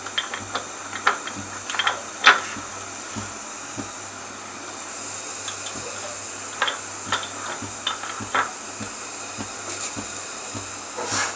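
Steady hiss from a pot of milk heating on the stove, with scattered light knocks and clicks as pieces of jaggery are added.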